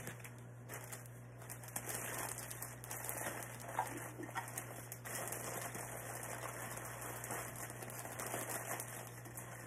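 Plastic zipper freezer bags crinkling and rustling as they are handled, with sliced vegetables sliding out of one bag into another, and a few small clicks and taps among the rustle.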